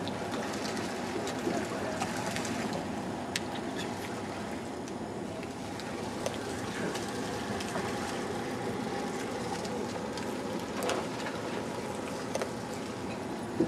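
Steady wash of ocean surf and wind, with a few faint clicks.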